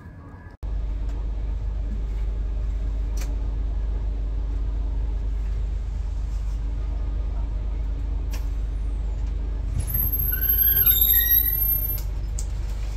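2016 Gillig BRT transit bus engine idling, heard from the driver's area: a steady low rumble. A short run of high chirping tones about ten seconds in.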